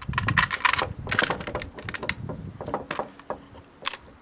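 Handling noise from a Ruger Ranch Rifle and its sling: a quick run of clicks and rattles in the first second or so, then scattered lighter clicks, with one sharper click near the end.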